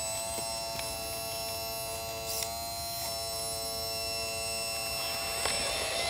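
Electric motors of a 1/14-scale RC bulldozer whining steadily with a high, buzzing tone as the machine pushes a load of dirt.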